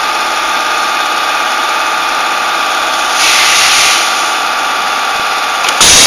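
Pneumatic wire stripping and terminal crimping machine running with a steady hum. A hiss of air comes about three seconds in, and a sharper, louder burst comes just before the end as it cycles.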